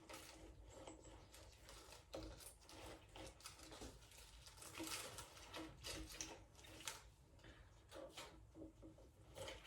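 Faint, irregular small clicks and light knocks of food being prepared by hand in a kitchen.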